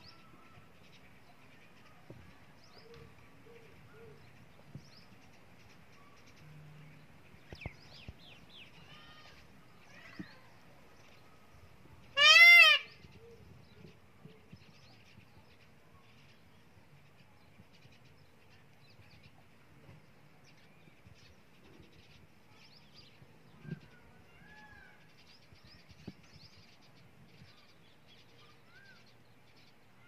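A single loud, nasal animal call about twelve seconds in, one arched note lasting about half a second. Faint chirps of small birds come and go.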